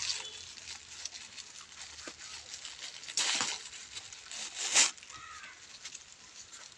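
Thin plastic carry bag crinkling and rustling as it is twisted and knotted by hand, with two louder rustles about three seconds in and again about a second and a half later.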